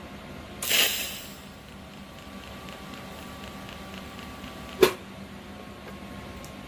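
TIG welder tacking steel tube: a short, loud hissing crackle as the arc strikes less than a second in, then the arc burning quietly over a steady machine hum, with faint regular ticking. One sharp click near five seconds.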